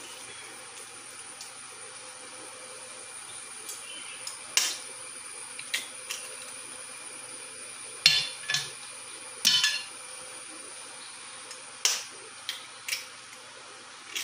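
About a dozen short, sharp knocks and clinks against a stainless steel mixing bowl while eggs and spoonfuls of powder are added to the chicken, over a faint steady hum. The knocks start about four seconds in and are loudest around the middle.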